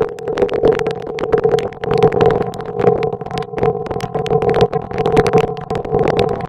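SoundHack Spectraphon Eurorack synthesizer module sounding a buzzing, engine-like tone that pulses several times a second around one steady pitch, with a fainter tone above it, riddled with rapid crackling clicks: one side of the module is modulating the other.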